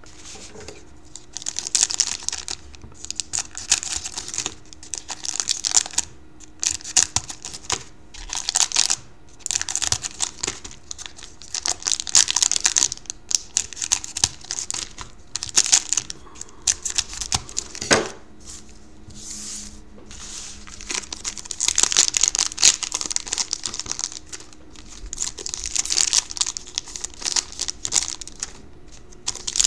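Foil trading-card pack wrappers crinkling and rustling in repeated irregular bursts as the packs are handled and snipped open with scissors. A single sharp click about two thirds of the way through.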